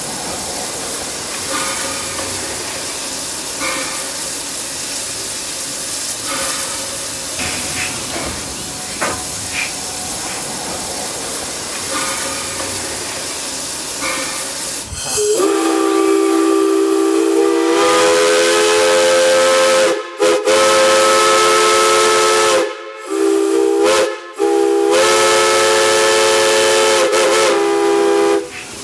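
Steady hiss of steam from a standing steam locomotive, then about halfway through a pre-war Pennsylvania Railroad three-chime steam whistle blows under steam: one long, loud chord of several notes, cut off briefly three times and held until just before the end.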